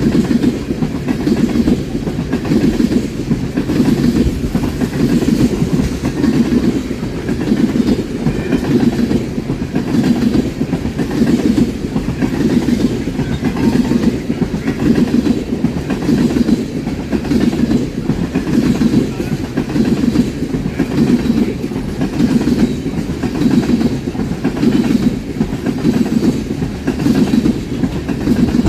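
A train's cars rolling steadily past at close range, their wheels clacking over the rail joints in an even rhythm of roughly one beat a second.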